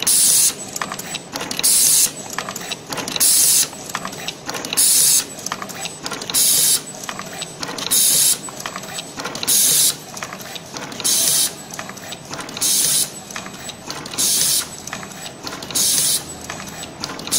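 Fully automatic single-head terminal crimping machine cycling: a short burst of compressed-air hiss about every one and a half seconds, one burst per finished wire, with mechanical clicking and clatter from the feed and crimp between the bursts.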